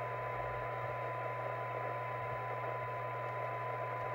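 Binatone 5-star CB radio's speaker giving steady receiver hiss with a faint steady test tone through it from the signal generator. The receiver is on a very weak signal, about 0.3 microvolt, during receive sensitivity alignment. A low hum runs underneath.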